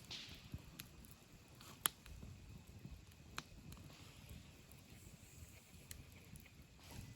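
Wood campfire crackling quietly, with a few sharp pops from the burning wood. The loudest pop comes about two seconds in and another about a second and a half later.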